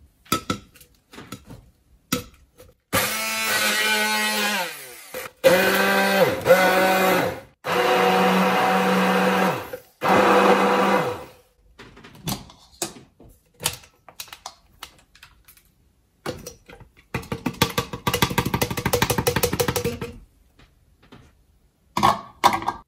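Electric stick blender puréeing shallots, garlic and galangal with oil into a paste in a tall plastic beaker. It runs in several short pulses of a couple of seconds each, and the motor pitch drops as each pulse stops. Clicks and knocks of the blender against the beaker come between the pulses.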